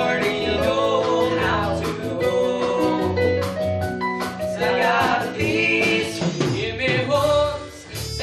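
Young male voices singing a musical-theatre number over a live band, with steady bass notes underneath.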